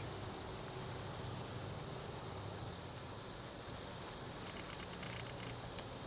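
Outdoor woodland-edge ambience: a steady hiss with faint insect trilling, broken by a few short, high chirps or ticks, the loudest two about three and five seconds in.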